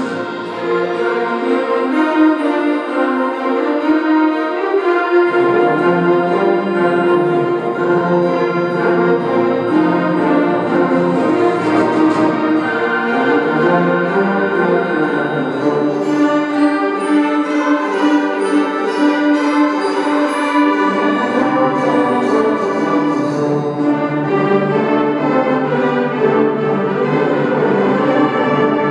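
School band playing a slow passage of sustained chords with brass prominent; lower instruments come in about five seconds in.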